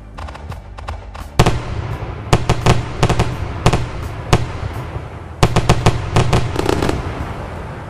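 Fireworks going off: a sharp bang about a second and a half in, then irregular clusters of cracking bangs, with a rapid run of crackling pops about two-thirds of the way through.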